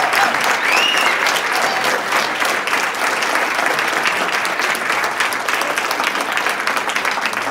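Small audience clapping by hand in sustained applause, easing off slightly near the end.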